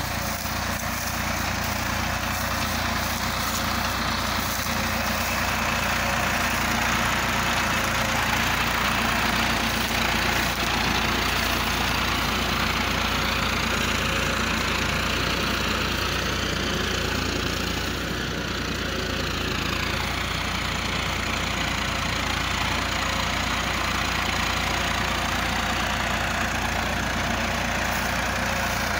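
John Deere tractor's diesel engine running steadily under load, pulling a two-bottom mouldboard plough through the soil.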